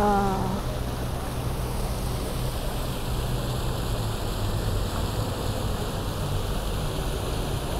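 Steady rush of water from a pond fountain, over a low hum of street traffic.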